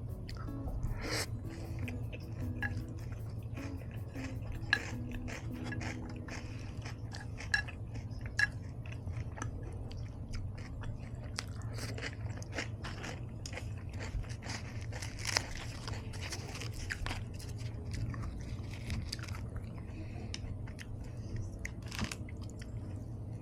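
Crunchy biting and chewing of pita chips loaded with salad: a steady run of crisp crunches, with a few sharper, louder bites standing out.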